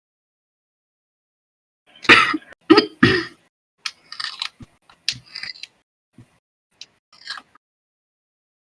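A young woman clearing her throat heavily: three harsh rasps in quick succession about two seconds in, then several quieter, shorter throat-clearing sounds. The throat clearing goes with a chesty smoker's cough.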